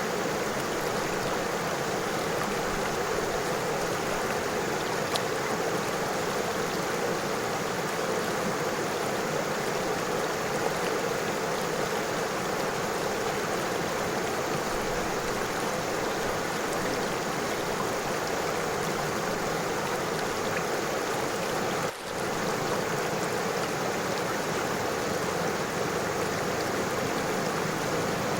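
River water flowing and rippling over stones, a steady rushing murmur, with one brief drop in level about three-quarters of the way through.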